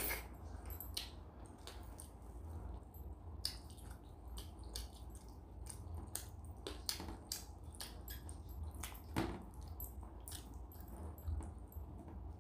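Eating by hand: fingers squishing and mixing rice and dal on a metal plate, with wet mouth clicks and chewing. Many short sharp clicks are scattered throughout, the loudest at the start and about nine seconds in.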